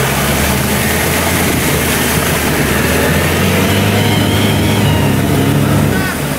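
Off-road 4x4's engine running steadily under load as it wades through deep water, with a hiss of water churning around it; the revs lift a little about four seconds in.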